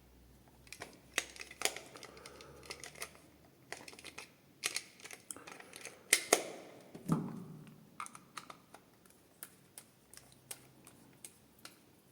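Irregular light clicks and taps of hard plastic being handled, with a duller knock about seven seconds in.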